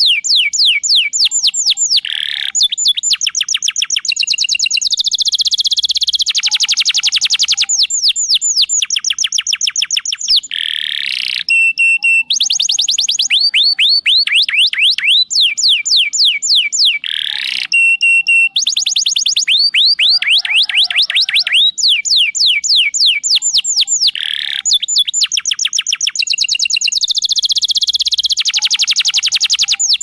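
Canary song: long rapid trills of sharp falling whistles, broken by short rolls and buzzy notes. The same phrases come back every several seconds.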